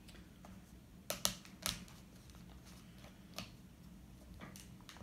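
A few sharp plastic clicks and rustles as a small plastic hose is pushed onto the spout of a plastic electrolyte bottle: a quick cluster a little over a second in, and another single click about three and a half seconds in.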